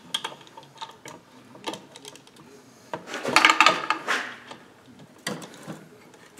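Ratchet wrench clicking in short runs on the connecting rod cap bolts inside a Briggs & Stratton 12 hp engine's crankcase, with metal tools clinking against the engine. The busiest stretch of rapid clicks comes about three seconds in, with single clinks before and after.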